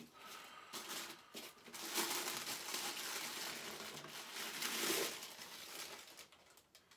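Plastic and foam packaging crinkling and rustling as parts are pulled out of a box, loudest from about two to five and a half seconds in, with a few small knocks before that.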